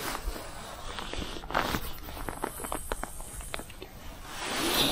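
Spinning rod and reel being cast and wound: a run of light, irregular clicks in the middle, with a swell of wind hiss on the microphone about a second and a half in and again near the end.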